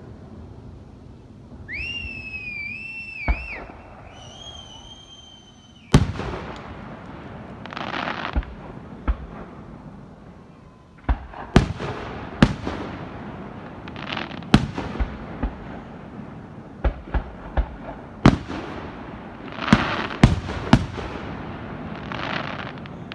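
Aerial fireworks display: two high, wavering whistles in the first six seconds, then more than a dozen sharp bangs of shells bursting overhead, the loudest about six seconds in, with patches of crackling between them.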